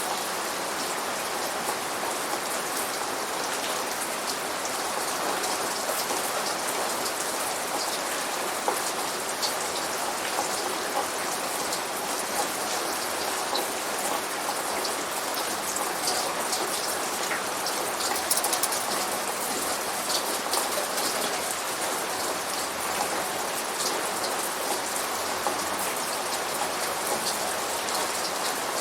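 Rainforest Cafe's simulated rainstorm sound effect: steady, even rain with many small drops ticking through it.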